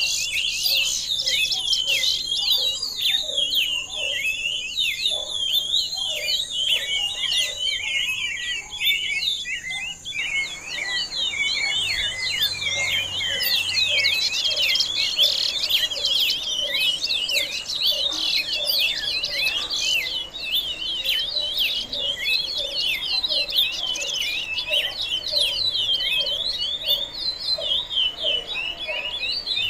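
Many small birds chirping and twittering rapidly and without pause. A steady high-pitched trill runs over them for about the first half, then stops.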